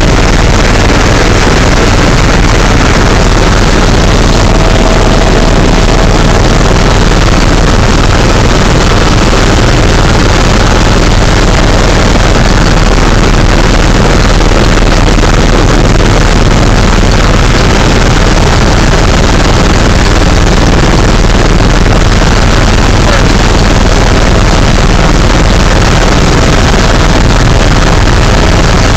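Helicopter turbine engine and main rotor in cruising flight, heard from inside the cabin: a loud, steady noise with a deep rumble underneath.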